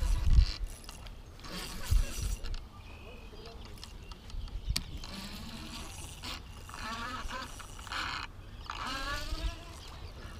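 Spinning reel being cranked as a hooked bass is played on a bent rod, with wind and handling thumps on the microphone in the first couple of seconds. A few drawn-out pitched calls come in about two-thirds of the way through and again near the end.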